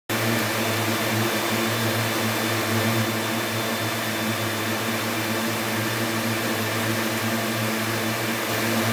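Yarn-processing machinery running on a textile mill floor: a steady low hum under a constant hiss, unchanging throughout.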